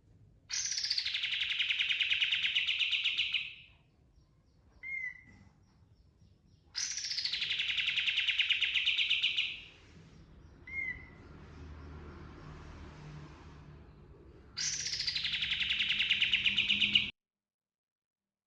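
Kapas tembak songbird singing in three rapid rolling bursts of about three seconds each, every burst opening with a high falling note and running on as a fast string of repeated notes, with two short single calls in between. The song stops abruptly near the end.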